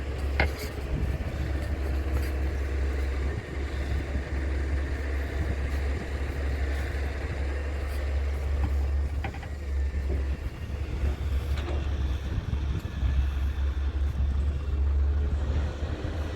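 The diesel engine of a Doosan DX170W wheeled excavator working, a steady deep rumble that eases briefly a few times, with a few short knocks.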